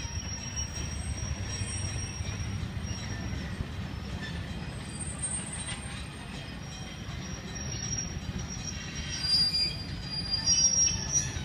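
An arriving train of cabooses and a passenger coach rolling past, its wheels squealing high and thin on the rails over a steady low rumble. The squeal grows loudest near the end.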